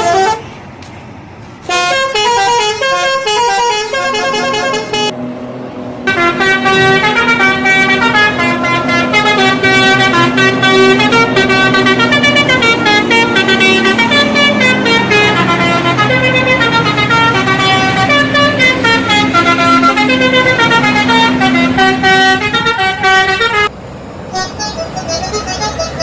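Indonesian bus telolet horns: a multi-trumpet air horn set playing a loud stepping melody of short tones. The tune changes abruptly about 2 and 6 seconds in, and near the end it drops to a quieter, higher tune.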